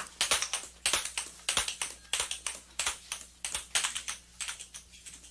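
A few people applauding by hand, irregular claps that thin out and stop near the end.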